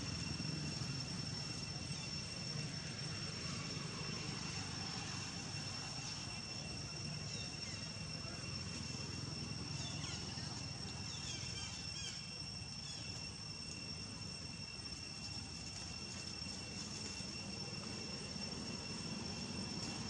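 Outdoor ambience of insects making a steady high-pitched drone over a low background rumble, with a few faint short chirps in the middle.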